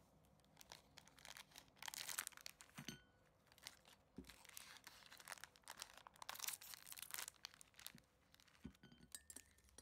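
Soft crinkling and tearing of a plastic cookie wrapper, with a few light taps as cookies are set down on a china saucer.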